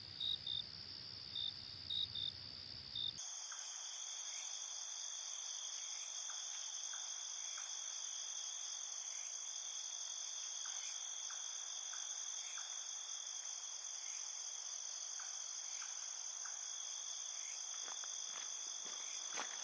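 Crickets chirping in short, evenly spaced pulses, then about three seconds in an abrupt switch to a dense, steady high cricket trill. Near the end, soft footsteps begin.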